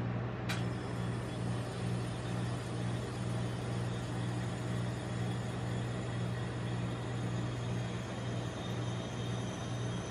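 Steady low hum of a rolled-ice-cream machine's refrigerated cold plate, its compressor running. A single short click about half a second in.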